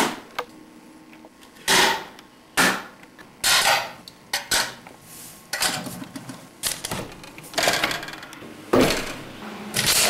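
A series of irregular knocks and clatters, about eight separate bursts, as of objects being handled and set down.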